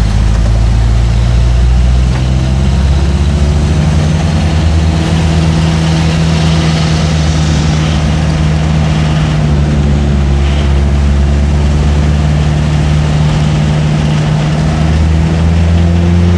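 Heavy diesel truck engine idling steadily, a low even rumble.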